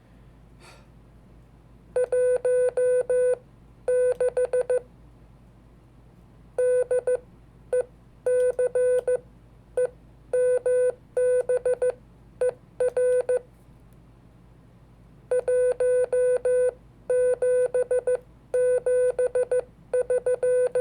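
Morse code (CW) sent as a single steady-pitched beep keyed on and off in dots and dashes: one date repeated in three groups (the day's number, the month spelled out, then the year), with short pauses between the groups.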